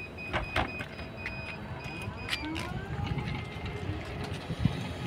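Trolleybus door warning beeping in a quick, high, dashed pattern, with the clacks of the doors closing. The beeping stops about two and a half seconds in, and a rising electric whine from the BKM 321 trolleybus's traction drive follows as it pulls away.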